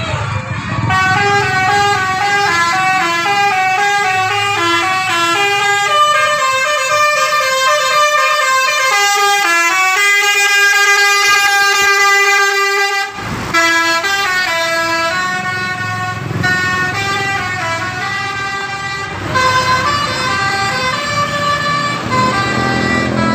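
Bus 'telolet' multi-tone horn playing a quick tune of stepped notes, several tones sounding together, with a brief break about 13 seconds in.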